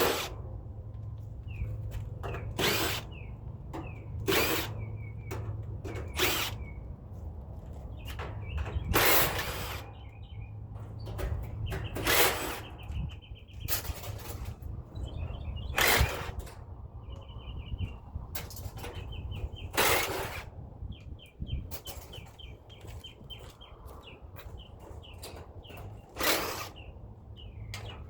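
Cordless drill-driver run in short bursts of about half a second each, about a dozen times at uneven gaps, backing screws out of the air-conditioner's sheet-metal casing.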